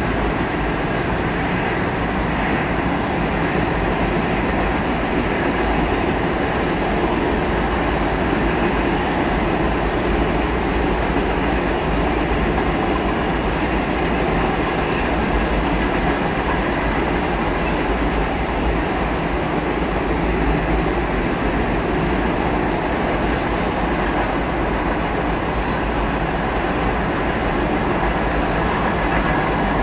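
Freight cars of a long CSX freight train rolling past at steady speed: an even, continuous noise of steel wheels running on the rails.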